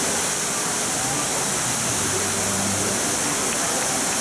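Steady, even rushing noise with faint voices of people underneath.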